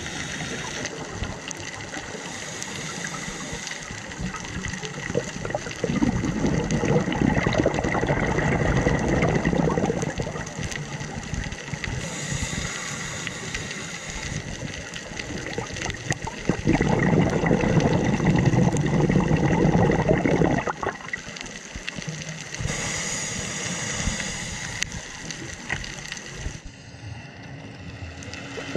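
Scuba regulator breathing underwater: slow breaths, each a short hissing inhale followed by a longer, louder burble of exhaled bubbles, about ten seconds apart.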